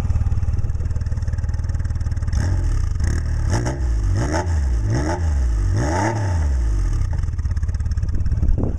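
A 1990 Honda Goldwing GL1500's flat-six idles through a pair of Harley-Davidson mufflers. From about two seconds in it is blipped several times, the note rising and falling with each rev, and then it settles back to idle near the end.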